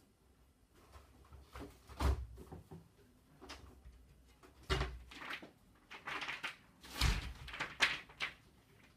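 Someone clambering about a high built-in wall cupboard: several heavy thumps and knocks about two, five and seven seconds in, with scraping and rustling between, and the wooden cupboard door being handled.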